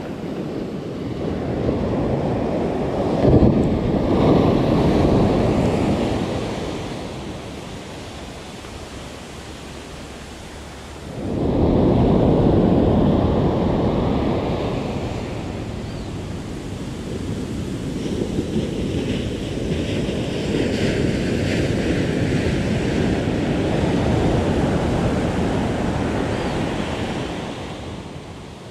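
Ocean surf breaking and washing up a sandy beach, rising and falling in swells. One wave comes in suddenly and loudly a little before halfway through.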